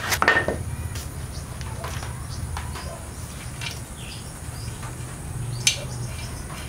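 Scattered light clicks and taps of metal parts as a motorcycle rear wheel is fitted at the axle, with one sharper click about five and a half seconds in, over a steady low hum.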